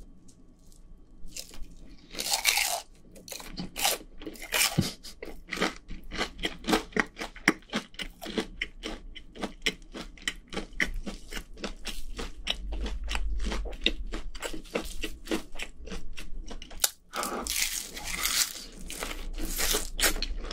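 Crunching and chewing of a crisp fried cheese stick, the breaded coating crackling in a rapid stream of small crunches, loudest in bursts about two seconds in and near the end.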